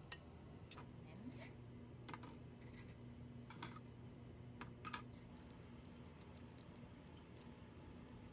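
Scattered light clicks and clinks of small hard objects being handled, about a dozen, mostly in the first five seconds, some with a short bright ring, over a faint steady hum.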